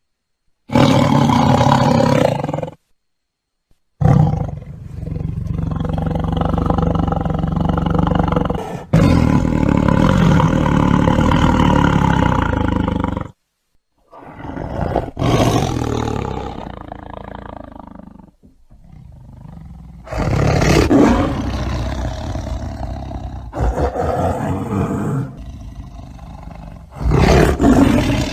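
Tiger roaring and growling: a string of separate loud roars, each a few seconds long, with short silent breaks between them.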